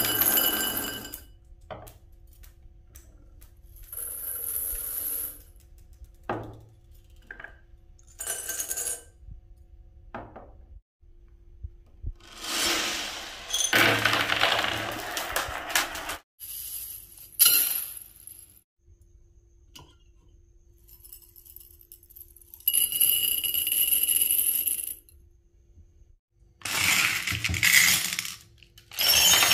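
Small beads and marbles poured into glass jars, clinking and rattling against the glass. The pours come in repeated bursts of one to three seconds each, with short pauses between.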